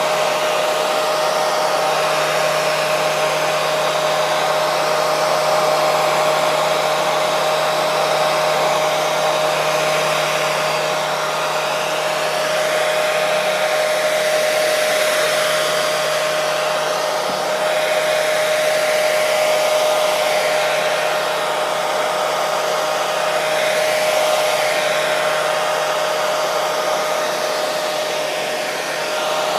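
Hair dryer running continuously: an even rush of blown air with a steady motor hum underneath.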